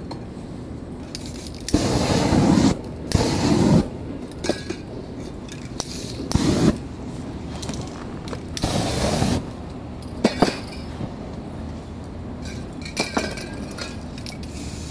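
Aerosol spray paint can sprayed in four short hissing bursts, each under a second, with a few light clicks and knocks between them.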